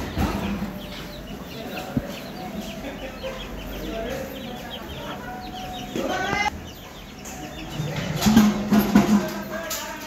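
A flock of chicks peeping in short high chirps while a hen clucks as they forage. Background music with a drum beat comes in near the end.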